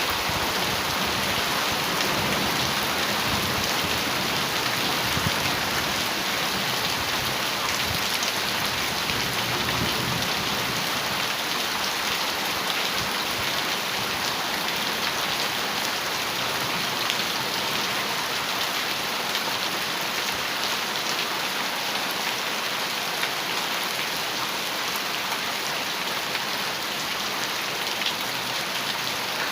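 Heavy rain drumming steadily on a metal roof, a dense hiss of countless drop ticks. A low rumble of distant thunder fades out over the first half.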